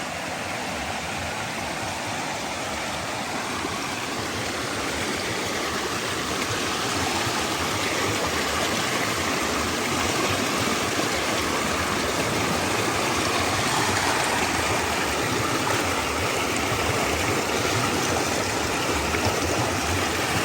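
Mountain creek rushing over rocks: a steady water rush that grows gradually louder over the first half, then holds.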